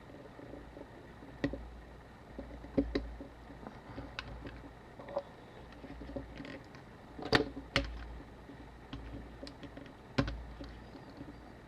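Small tools clicking and tapping on a Canon AE-1 camera's top plate while its rewind knob is worked loose: scattered sharp clicks, the loudest a pair a little past seven seconds in and another about ten seconds in.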